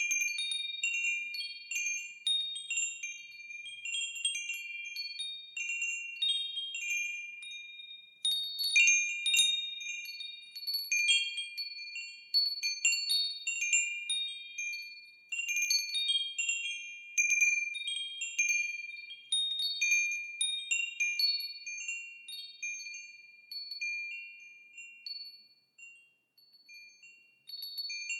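Wind chimes tinkling, several high ringing tones struck at irregular moments and overlapping as each fades. The strikes come thickest through the middle and thin out near the end, with a short lull before a few more.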